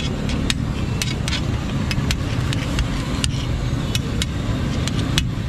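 Metal utensils clinking sharply and irregularly, about two or three times a second, over a steady low rumble.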